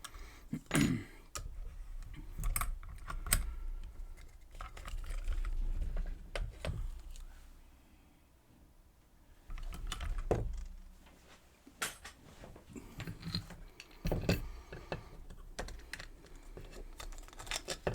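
Small, irregular metallic clicks and taps of lock picks and a tension wrench handling a freshly picked Schlage Everest 29SL lock cylinder, with a short pause about eight seconds in.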